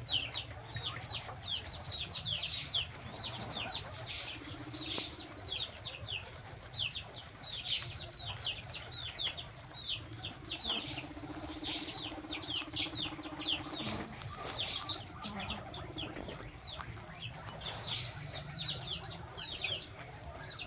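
Birds chirping continuously: short, high, falling chirps, several a second. A faint low hum joins for a few seconds about halfway through.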